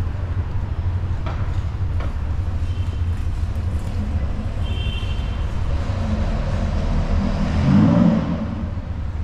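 Street traffic: a steady low rumble, with a motor vehicle passing close that is loudest about eight seconds in.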